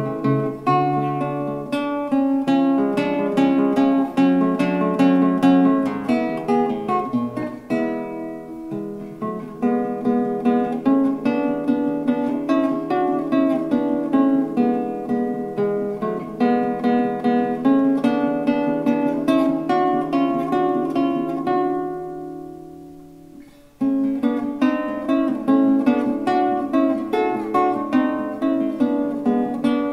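Solo classical guitar, plucked notes and chords in a lively run of short phrases. About 22 seconds in, the playing dies away on a ringing chord, and it restarts abruptly a couple of seconds later.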